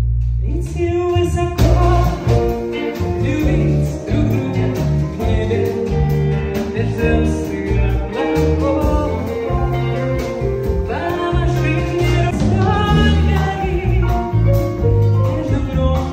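A small live band playing a song with a woman singing into a microphone, backed by drums, electric guitar, keyboard and double bass, the bass notes standing out.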